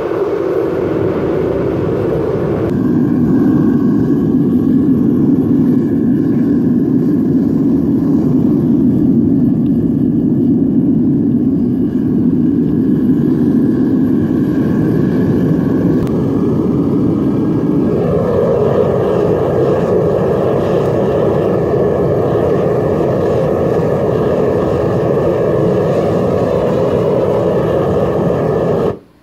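Propane burner of a metal-melting crucible furnace burning at full fire with a loud, steady rushing noise while it melts scrap aluminum. The tone of the rush drops about three seconds in and rises again about eighteen seconds in.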